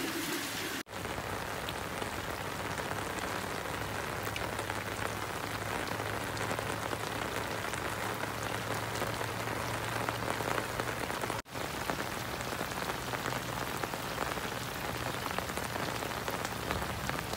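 Heavy rain falling on flooded ground and standing water, a steady hiss of drops. It breaks off for an instant about a second in and again around eleven seconds, where clips are joined.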